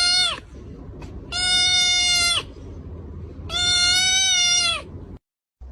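An animal giving three long, steady, high-pitched calls, each held about a second and dropping in pitch as it ends.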